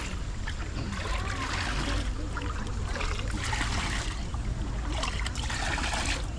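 Water steadily trickling and splashing, with people talking faintly in the background.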